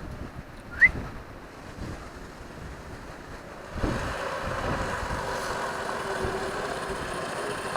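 Coleman CT200U-EX mini bike's single-cylinder four-stroke engine running steadily at a distance on a test ride. It gets clearly louder about four seconds in and holds steady after that. A brief rising whistle comes about a second in.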